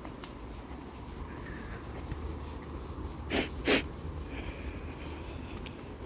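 Two quick, breathy puffs of a person's breath about half a second apart, some three seconds in, over a quiet background.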